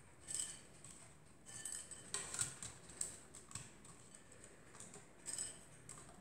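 Raw dried tagliatelle nests crackling and rustling faintly as they are picked up by hand and set into a baking dish. The sound comes in several short, crisp, scattered bursts.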